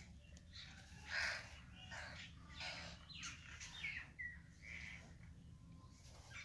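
Birds chirping faintly, a scatter of short calls and brief pitch glides, over the soft rustle of hands rubbing a crumbly flour-and-khoya mixture in a metal bowl.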